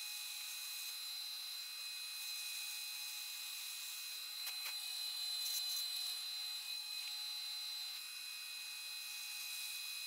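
Milling machine running with a steady high-pitched whine as a 5/8-inch end mill cuts a counterbore in steel bar stock.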